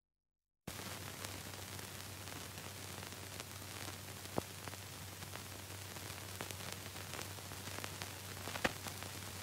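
Surface noise of an old film print's soundtrack: a steady hiss with a low hum and scattered clicks and crackles, cutting in suddenly from dead silence just under a second in.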